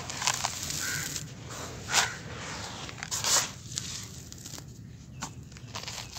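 Dry, gritty sand-and-dirt mix crunching as it is squeezed and crumbled by hand, with the hiss of grit trickling back onto the pile. The loudest crunches come about 2 and 3 seconds in; after that there are only a few small crackles.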